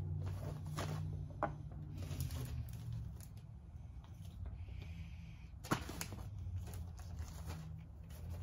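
Workbench handling noises: a few short sharp clicks as metal engine parts and paper gaskets are picked up and set down, the loudest about six seconds in, over a steady low hum.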